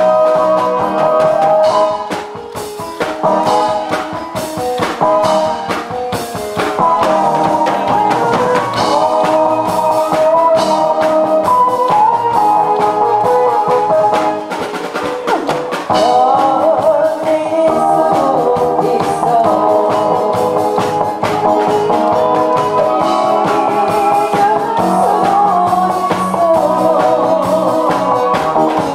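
Instrumental backing track playing through the sound system, with a melody over a regular drum beat: the lead-in to a song before the singer comes in.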